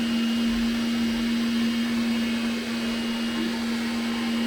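Makita cordless vacuum cleaner running steadily with a brushed (not brushless) motor: a strong, even hum over the hiss of air being drawn through the extended nozzle.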